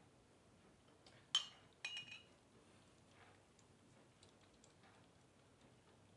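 Two sharp clinks about half a second apart, each ringing briefly: a glass bowl knocking against the dish and mat as it is set down. Then faint, quick ticking of kittens lapping milk.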